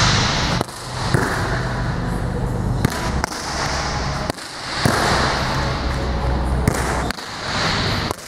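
Volleyball being hit and dug in a defence drill: several sharp slaps of hand and forearms on the ball, a second or two apart, over gym room noise with a low hum.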